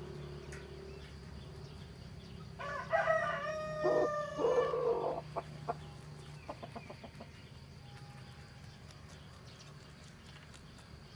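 A rooster crows once, a call of about two and a half seconds starting near three seconds in and the loudest sound here. Under it, faint short clicks of a rabbit chewing water spinach stems.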